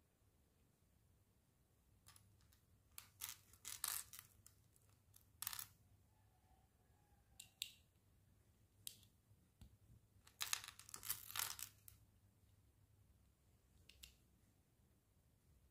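Tiny plastic micro building bricks clicking and snapping as they are pressed onto a model by hand: short sharp clicks, some single, some in quick clusters, the densest about three to four seconds in and again around ten to eleven seconds in.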